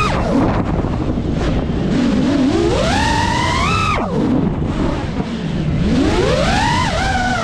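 5-inch FPV quadcopter's brushless motors whining, the pitch climbing in long glides as the throttle goes up. It drops sharply about four seconds in and climbs again near the end.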